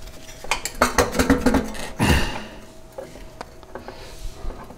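Snowblower auger being twisted and tugged by hand on its shaft: a quick run of light metallic clinks and rattles from about half a second to a second and a half in, a louder scrape about two seconds in, then a few faint clicks.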